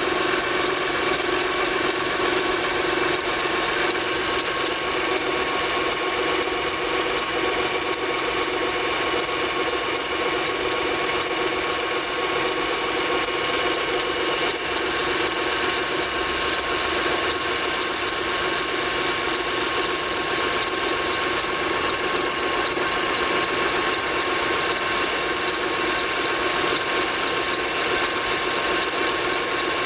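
Honda Pilot V6 engine running cold with a fast, steady ticking knock. By the owner's account, the knock is heard only while the engine is cold and is gone once it has warmed up.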